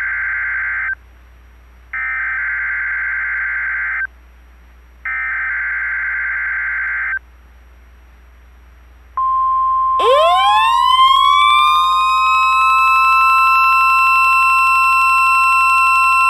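NOAA Weather Radio test signal: the digital SAME header's warbling data tones sent as three bursts about two seconds long with one-second gaps, then the steady weather radio warning alarm tone starting about nine seconds in. About a second later a second tone with overtones sweeps quickly up and levels off, sounding together with the alarm tone.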